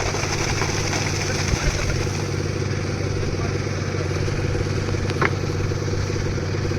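Concrete mixer's engine running steadily, with a couple of brief knocks or clicks over the hum.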